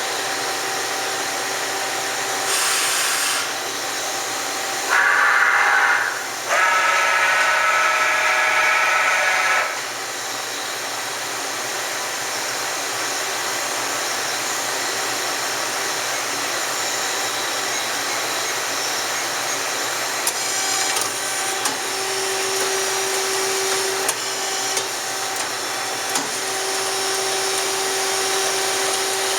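Kitamura Mycenter 4 CNC vertical machining center running, with a steady hum throughout. There is a short noisy burst about three seconds in, then two loud bursts of motor whine in several tones between about five and ten seconds. From about twenty seconds in comes a lower steady whine with light clicks.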